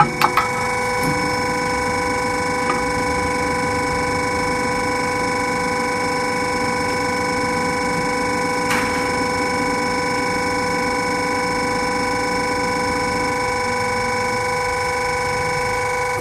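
Shutter door slide rail roll forming machine running with a steady whine, a rougher lower running noise from about a second in until a few seconds before the end. A sharp knock right at the start, with a few lighter clicks after it.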